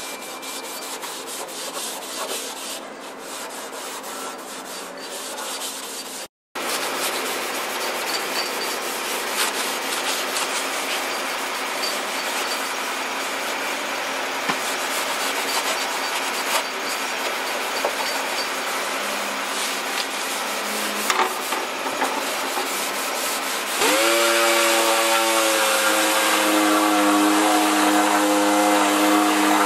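Hand sanding the painted steel trunk lid with an abrasive pad: a steady scratchy rubbing, broken briefly about six seconds in. About 24 seconds in, an orbital sander starts up, its whine rising and then holding steady over the sanding noise.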